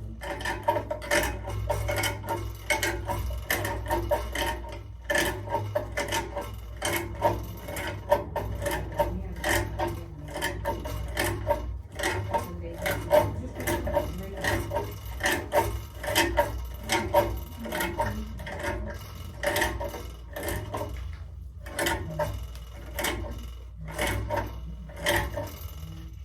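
Small metal parts and tools clinking and rattling as they are rummaged through and handled: a dense, irregular run of clicks and clinks over a steady low hum.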